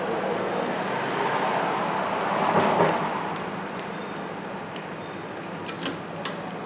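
A passing vehicle: its noise swells to a peak about halfway through, then fades, over a steady low hum. A few light clicks come near the end.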